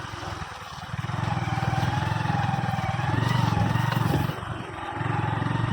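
Motorcycle engine running at low revs with a steady firing pulse, easing off briefly about half a second in and again near the end.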